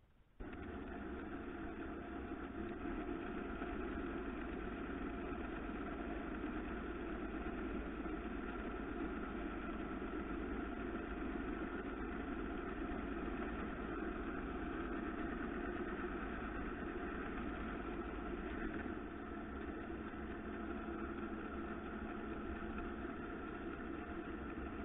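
Wood lathe running at a steady speed, its motor giving a constant hum, while strips of sandpaper are held against the spinning turned wood. The sound starts suddenly right at the beginning and holds steady throughout.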